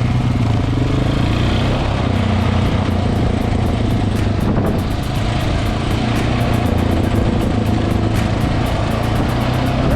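Single-cylinder adventure motorcycle engine running steadily while riding.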